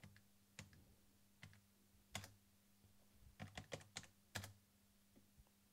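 Faint, irregular clicks of keys typed on the Amstrad NC100 Notepad computer's keyboard, about a dozen keystrokes, with a quicker run of them a little past halfway. A faint steady low hum lies underneath.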